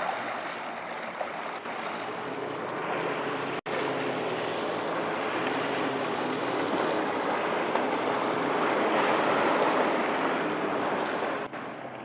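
Lake water lapping and sloshing close to the microphone, with wind noise, swelling somewhat louder a little after the middle.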